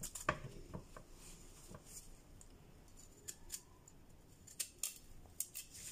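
Chef's knife working a raw carrot: a sharp knock near the start, then a series of short, sharp scrapes as the blade is drawn along the carrot.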